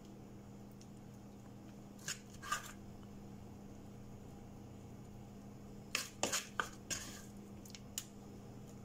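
A plastic scoop clicking and scraping against a mixing bowl while thick oatmeal batter is scooped out: two short clicks about two seconds in, then a quick cluster of knocks and scrapes near the end, over a faint steady hum.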